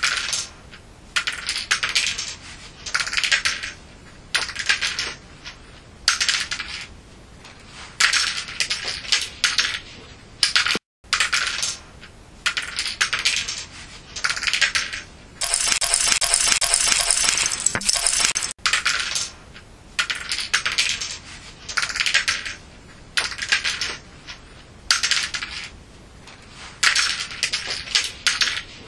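Plastic LEGO bricks clattering in short bursts, about one a second with brief pauses, and one longer run of clattering lasting about three seconds in the middle.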